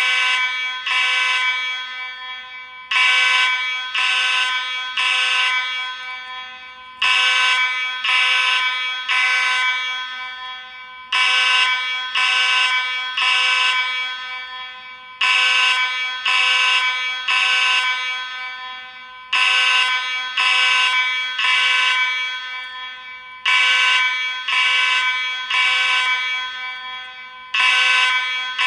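Space Age AV32 fire alarm horn sounding a temporal-3 evacuation pattern: three short horn blasts about a second apart, then a pause, repeating every four seconds.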